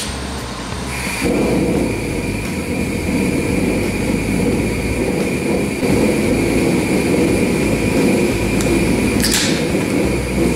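Propane gas forge burner lighting about a second in, then running steadily: a rushing gas flame with a thin, high, steady whistle over it. A short swish near the end.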